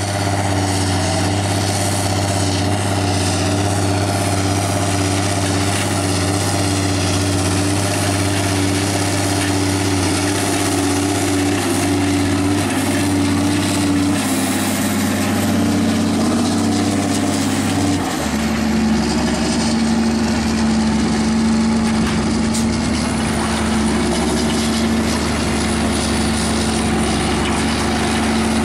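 Claas Axion tractor's six-cylinder diesel with a straight-pipe exhaust, running steadily under load while pulling a cultivator. About two-thirds of the way through, the engine note drops to a lower pitch and holds there.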